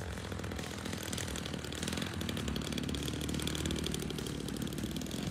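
The engine of a 40%-scale L4 Grasshopper radio-control model plane runs as the plane comes in low to land. It grows louder as the plane nears.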